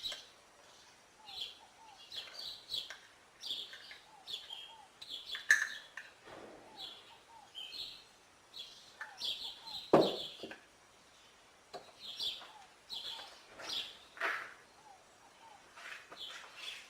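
Birds chirping and tweeting in short scattered calls, with a few clicks and knocks, the loudest about ten seconds in.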